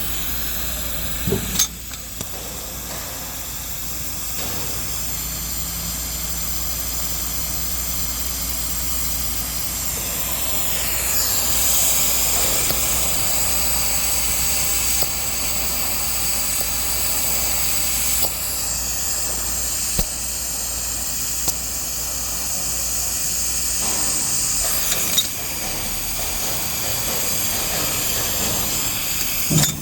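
Welding arc hissing steadily on a weldolet joint, with a few sharp clicks along the way.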